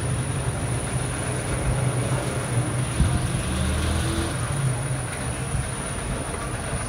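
Steady low mechanical rumble and hum with a thin, constant high-pitched whine above it.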